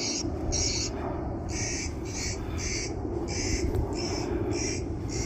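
A bird calling over and over, short even calls about twice a second, over a steady low hum.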